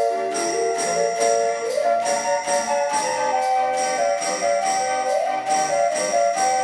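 A giant automatic music machine, an orchestrion-style mechanical organ, playing a lively tune. Held melody notes sound over a steady beat of bell and tambourine-like percussion, about two strikes a second.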